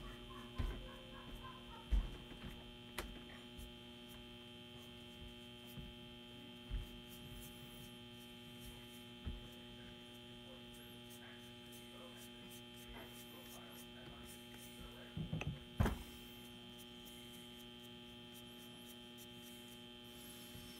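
Steady electrical mains hum, with faint scattered taps and a few louder knocks from a small brush dabbing (stippling) paint onto a wooden decoy.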